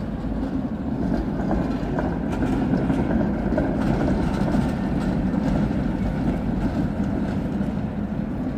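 Tatra T3 tram running along street track through a junction: a steady rumble of wheels on rail that swells as it passes, mid-way through, and eases as it moves away.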